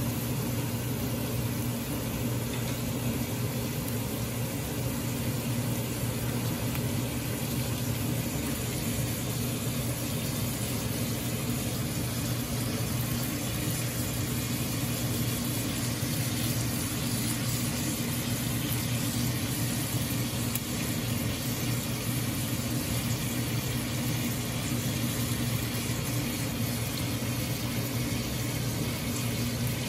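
Pork belly, liver and onions sizzling in a large aluminium pot on a gas burner: a steady frying hiss, with a steady low hum underneath.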